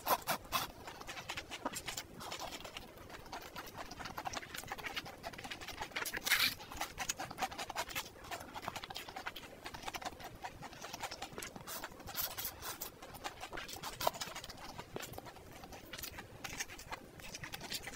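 Close-miked chewing and slurping of spicy stir-fried noodles: a steady, irregular run of wet mouth clicks and smacks, with a louder burst about six seconds in.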